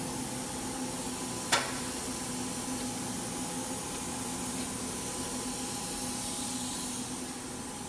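Steady hum with a hiss from powered-up machine-shop equipment standing idle, with a few even tones under the hiss. There is a single sharp click about one and a half seconds in.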